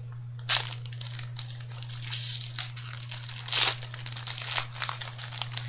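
Plastic trading-card pack wrapper crinkling and being torn open in several short rustling bursts, over a steady low hum.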